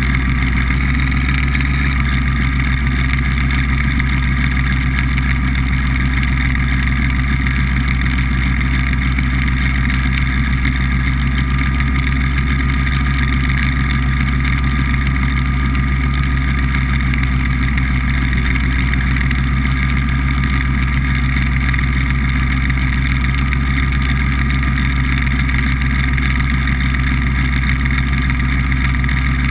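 BBV 2+2 hovercraft running at a steady cruising speed: its engine and fan make a loud, even drone with no change in pitch.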